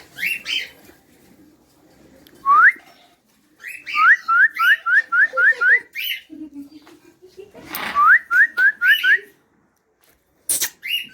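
Pet parrot whistling: a single rising whistle, then quick runs of short upward-sliding whistles, about three a second, mixed with brief harsher chirps.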